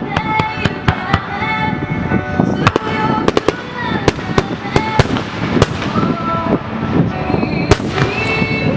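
Fireworks shells bursting and crackling in rapid, irregular succession, many sharp reports in a row, over music with long held notes playing alongside the show.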